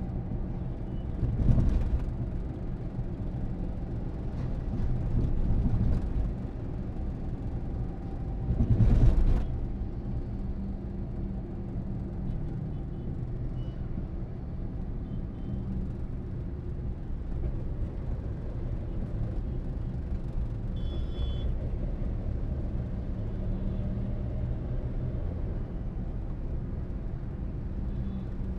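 Steady engine hum and tyre and road noise heard from inside a car driving in city highway traffic. The sound swells louder a couple of times in the first ten seconds as traffic passes close by, and there is a short high-pitched beep about twenty seconds in.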